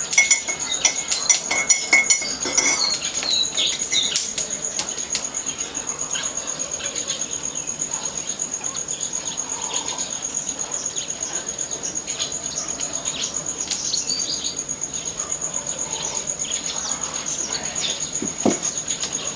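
Insects trilling steadily at a high pitch, with scattered bird chirps. A few sharp clicks come in the first three seconds, and there is one knock near the end.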